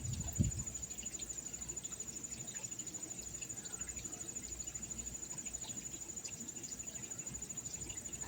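An insect trilling steadily on one high pitch, pulsing rapidly without a break, over a low background hum; a single dull thump comes about half a second in.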